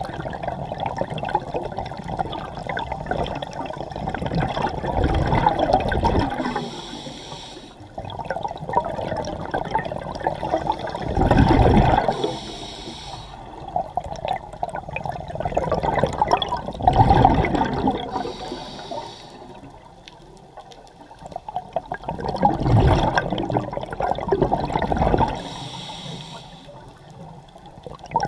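Scuba breathing through a regulator underwater: a gurgling rush of exhaled bubbles swells and fades about every six seconds, each followed by a brief high hiss.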